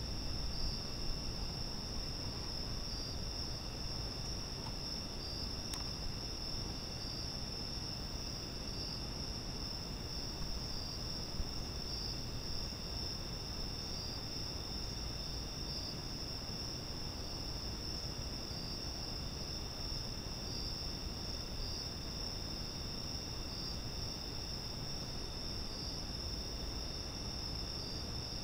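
Crickets calling in a steady night chorus: several high, unbroken trilling tones at different pitches, over a low rumble of background noise.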